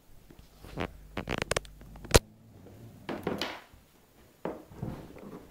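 Rustling and crackling handling noise with scattered clicks, one sharp click about two seconds in, and a breathy swell a second later.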